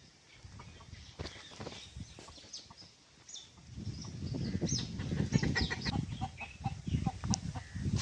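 Domestic chickens clucking in short scattered calls. A louder rustling, buffeting noise comes in from about four seconds in.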